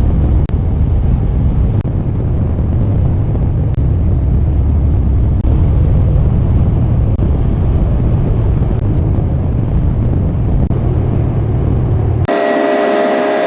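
Strong wind buffeting the microphone: a loud, steady, rushing rumble, heaviest in the low end. Near the end it breaks for a couple of seconds of steady, multi-toned sound.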